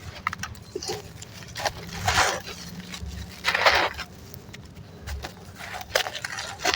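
Lumps of red sand and charcoal crumbling and breaking up in foamy water: two longer gritty, splashy bursts about two and three and a half seconds in, with scattered small crackles and clicks between.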